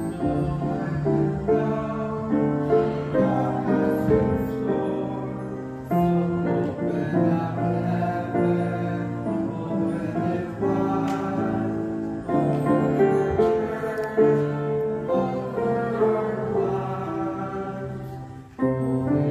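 Kawai grand piano playing chords under singing voices, with long held sung notes. The music dips briefly near the end before the next phrase comes in.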